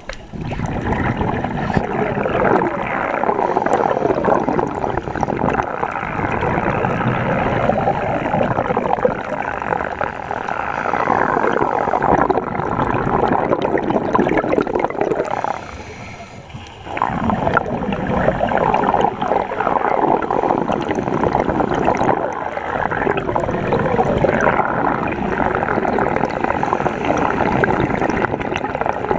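Underwater bubbling and rushing water noise picked up by a diver's camera, with a brief lull a little past the middle.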